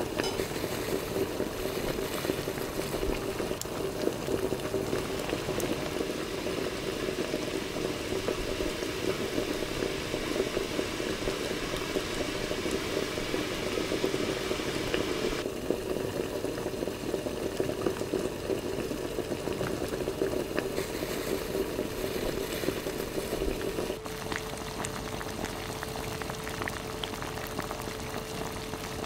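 Thick, creamy chicken stew bubbling steadily at a simmer in a wide pan on the stove. About 24 seconds in, the bubbling drops a little in level and a faint steady hum joins it.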